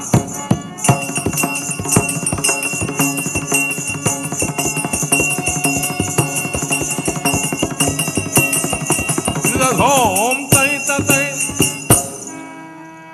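Traditional South Indian shadow-puppet theatre music: a quick run of percussion strikes and steady jingling bells over a held high drone, with a wavering melody line near ten seconds. The music cuts off suddenly about twelve seconds in.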